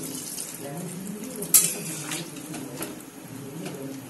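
Metal spatula stirring and scraping through watery curry in a metal pan (kadai). One sharp clang of the spatula against the pan about one and a half seconds in is the loudest sound, with a few lighter knocks after it.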